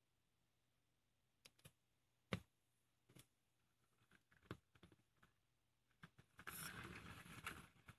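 Faint handling noises on a wooden table: a few soft knocks and taps, the loudest about two and a half seconds in, then about a second of scraping rustle near the end as the glass cup is handled.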